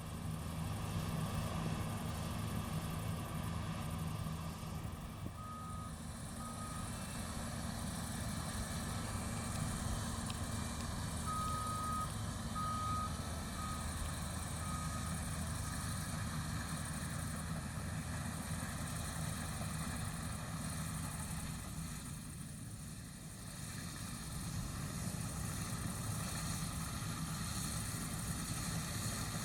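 Heavy farm machinery's diesel engine running steadily at a barley harvest, with a few short electronic warning beeps of the reversing-alarm kind twice in the middle.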